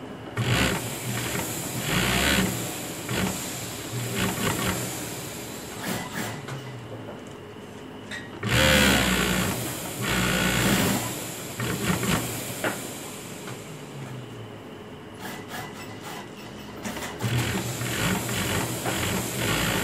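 Pegasus industrial sewing machine stitching fabric in a string of short stop-start runs, with its longest and loudest run about nine seconds in.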